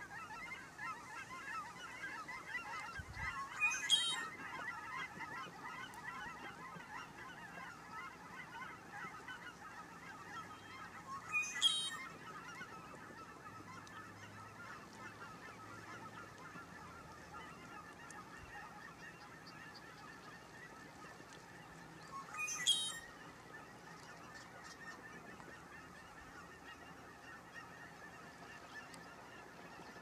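Male red-winged blackbird singing its buzzy conk-la-ree song three times, several seconds apart, over a constant background chatter of many birds calling.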